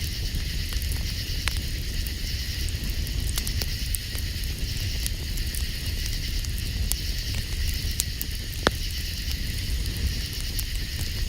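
Campfire crackling with scattered sharp pops, the loudest about nine seconds in. Underneath run a steady low rumble and a steady high chorus of night insects.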